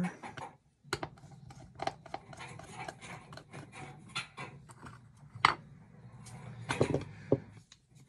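Screwdriver turning small screws out of a part of a vintage ITT rotary phone: scattered small metallic clicks and scrapes of the driver tip, screws and parts being handled, with one sharper click about five and a half seconds in and a few more near the end.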